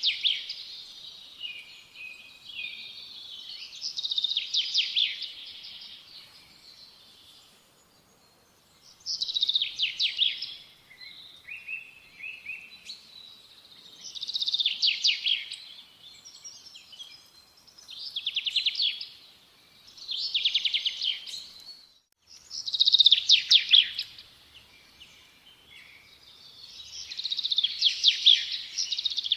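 A songbird singing short, fast trilled phrases, repeated every few seconds.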